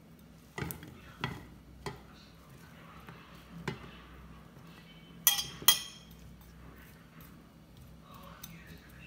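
Knife scraping chopped bell pepper pieces off a plate into a nonstick frying pan: a few light knocks, then two sharp clinks of metal on crockery and pan about five and a half seconds in, the loudest sounds here, as the pieces tumble in and are pushed about with the knife.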